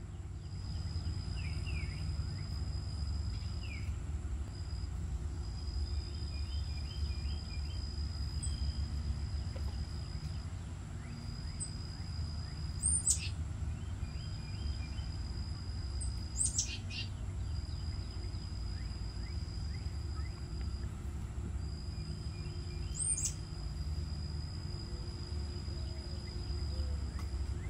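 Outdoor ambience of wild birds calling, with three sharp falling whistles standing out, over a steady high-pitched insect drone that runs in long stretches of a few seconds and a constant low rumble.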